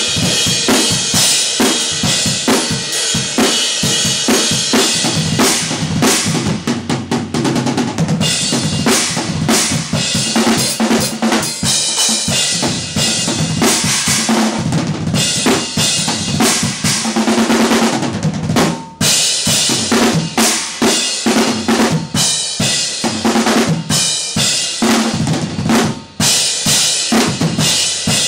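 A drum kit played in a driving rock groove: bass drum, snare and crashing cymbals struck in quick succession, with two brief pauses in the last third.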